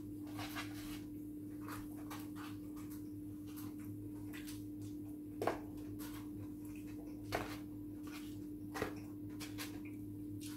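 A small plastic pot and foam takeaway boxes being handled at a table, giving faint scattered clicks and rustles, with three sharper clicks in the middle. A steady low hum runs underneath.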